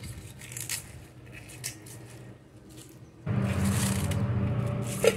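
Crisp cabbage leaves being torn apart by hand, with faint crackling snaps. About three seconds in it turns to louder rustling of the torn leaves over a steady low hum, with a sharp click near the end.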